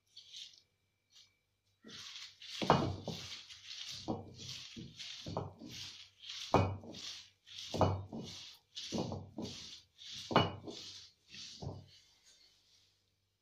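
Cylindrical stone roller pushed back and forth over a flat stone grinding slab, crushing wet green leaves into a paste: a rhythmic scraping and knocking of stone on stone, about one heavy stroke a second with lighter ones between. It starts about two seconds in and stops shortly before the end.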